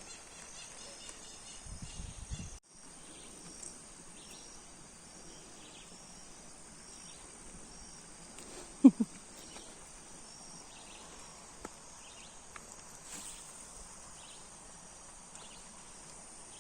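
Outdoor ambience: a steady hiss under a short, high chirp that repeats about once a second, with one brief, loud falling call about nine seconds in.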